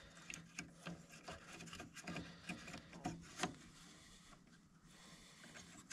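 Faint, irregular small clicks and rubbing from hands working an electrical wiring plug back into place on a tractor. The clicks come thicker in the first half and thin out toward the end.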